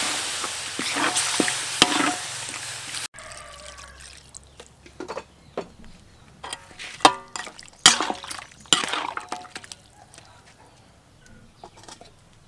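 Pork pieces sizzling and hissing in a hot wok as liquid is added; the hiss fades over the first three seconds and cuts off. Then a metal spoon clinks and scrapes against the wok while the pork is stirred in the liquid, with a few sharper knocks about seven to eight seconds in.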